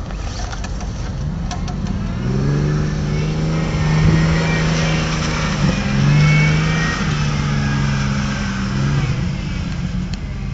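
Off-road Jeep engine pulling under throttle as the Jeep drives close past. The engine note rises in about two seconds in, holds with small changes in revs, and is loudest in the middle before fading near the end.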